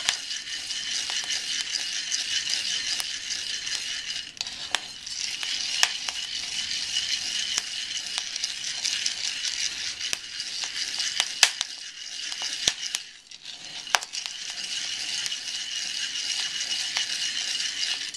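Colombia Supremo coffee beans rattling and scraping as a wooden spoon stirs them in a hot cast iron pan, over a steady hiss, with scattered sharp pops of first crack: the roast is going from drying into first crack. There is a brief lull about two-thirds of the way through.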